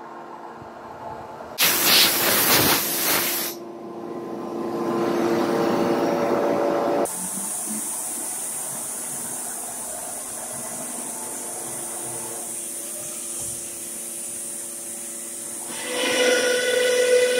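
SCM Tech99 CNC router working, with no voice. A loud hiss of air lasts about two seconds. Then a mix of machine tones gets louder, and from about seven seconds a steady high-pitched whine holds. Near the end a louder whine made of several tones starts.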